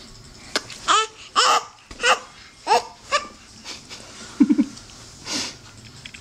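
A 10-month-old baby babbling in a run of short, high-pitched calls that fall in pitch, about five in quick succession. These are followed by a low stuttering sound and a breathy one near the end.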